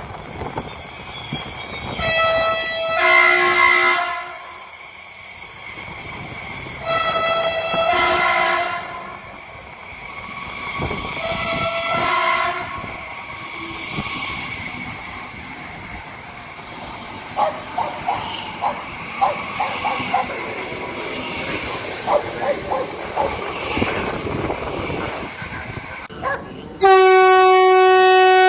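Train passing: its two-tone horn sounds three short blasts, then wheels click over rail joints, and a long, loud horn blast starts near the end.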